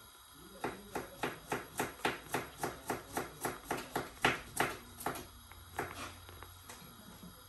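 Knife chopping on a cutting board in quick, even strokes, about three or four a second, for about four seconds, then a few slower strokes before it stops.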